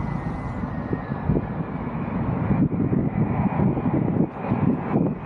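Jet airliner passing low overhead as it comes in to land: a steady rumble with a faint high whine above it.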